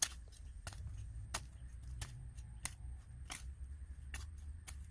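Faint, sharp clicks about every two-thirds of a second over a steady low rumble.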